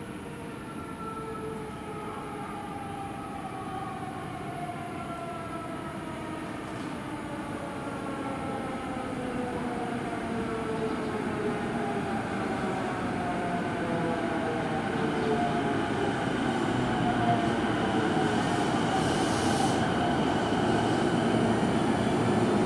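Electric commuter train pulling into a station: its motor whine glides slowly down in pitch as it brakes, and the rumble grows steadily louder as it comes closer.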